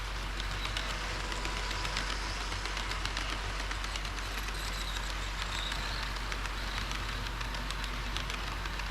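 HO-scale model train running on layout track: a steady running hiss and low hum, dotted with many small irregular clicks as the wheels pass over rail joints.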